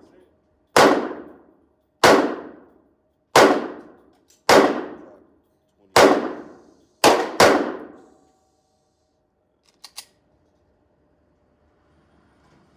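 Pistol fired seven times at a slow, uneven pace, with about a second of ringing echo after each shot; the last two shots come in quick succession. Two faint clicks follow a couple of seconds later.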